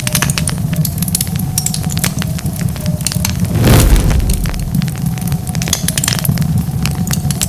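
Wood fire crackling, with many sharp pops over a steady low rumble of flames. About three and a half seconds in comes a louder rush of noise lasting about half a second.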